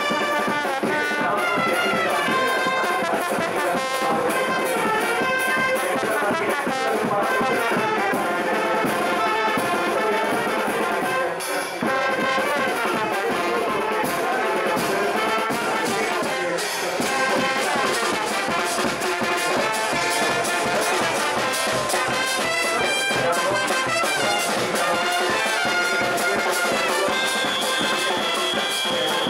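A charanga, a Spanish street brass band, playing: trumpets and trombones carrying a melody over a steady drum beat.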